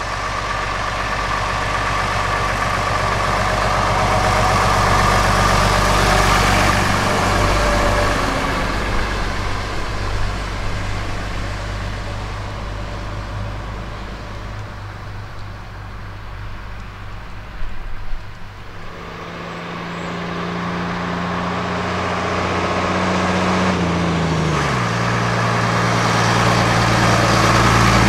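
A bus engine passing close by, swelling and then fading away, followed by another bus engine approaching and pulling hard; its note drops suddenly at a gear change and it grows louder near the end.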